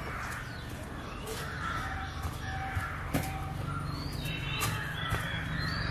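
Crows cawing, with a few thin, higher bird chirps about four seconds in.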